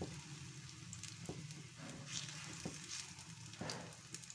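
Semolina chilla batter sizzling gently in ghee on a hot non-stick tawa, with the light scrape and a few short taps of a steel spoon spreading the batter out.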